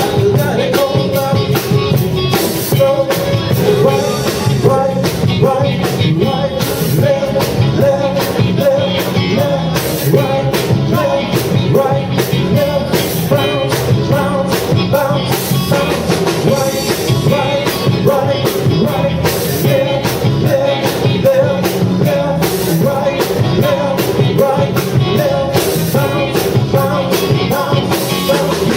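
A live band playing an upbeat song on keyboards, electric guitar and drums, with singing, to a steady driving beat.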